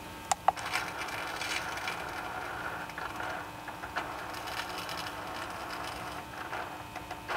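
Holset HE351VE electric turbo actuator running its calibration step, the actuator motor driving the sector gear: a steady whir with a few light clicks.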